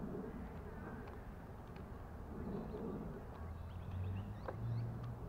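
A low buzzing hum that grows louder about three and a half seconds in and steps up slightly in pitch near the end, over a steady rumble on the microphone, with a few faint high chirps.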